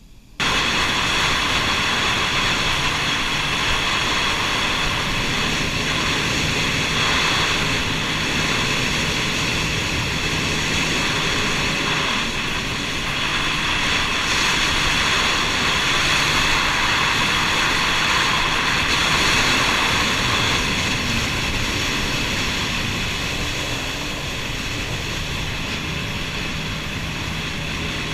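Jet ski engine running steadily at speed, with a high steady whine over a dense rushing noise; it cuts in suddenly at the start and eases a little in the last quarter.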